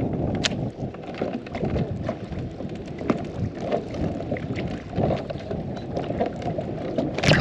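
Wind buffeting the microphone in uneven gusts, with a few sharp clicks, the loudest near the end.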